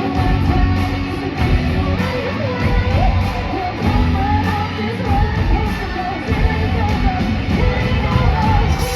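Loud heavy rock music with electric guitar and a strong steady low end.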